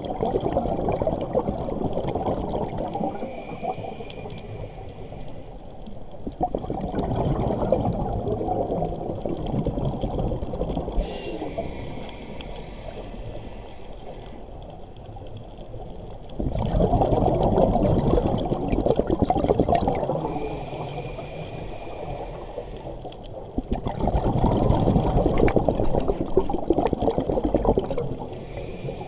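Scuba diver breathing through a regulator underwater: four long exhalations of bubbling rumble, with quieter inhalations between them, each a faint hiss with a thin high whistle.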